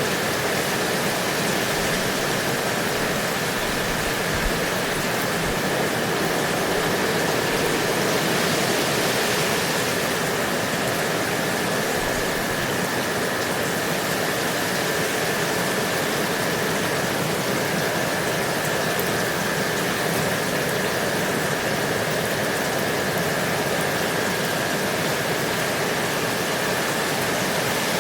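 Steady rain, an even hiss with no breaks or single drops standing out, with a faint steady high tone running under it.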